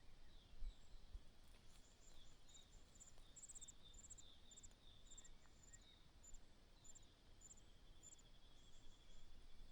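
Faint, high-pitched bird chirps repeating about twice a second, with softer lower chirps beneath them. A brief low thump about half a second in.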